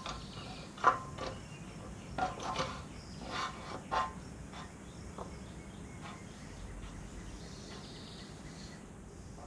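A few scattered metal clinks and knocks, about six in the first five seconds, as the pins and washer shims of a backhoe quick-connect coupler are worked into a tight fit; after that only a faint steady background.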